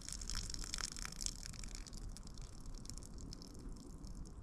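Water hissing in a pan of potatoes over a campfire, strongest for the first two seconds and then dying down, with small crackles throughout.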